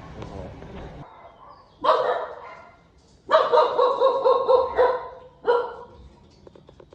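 Puppy barking in three bouts: a short bark about two seconds in, a longer run of barks in the middle, and another short bark near the end.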